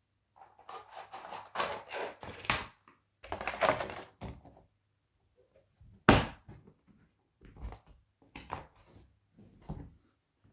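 Hard plastic tool case being handled: the clear lid of a Milwaukee screwdriver set's case clattering and knocking as it is closed over the screwdrivers, with one sharp, loud knock about six seconds in, then lighter clicks and knocks as the case is handled shut.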